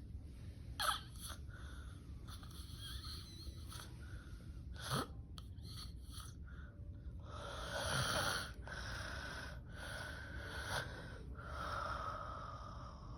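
A sleeping woman snoring, her breaths wheezy and rasping, with two longer, stronger breaths about two-thirds of the way in and near the end.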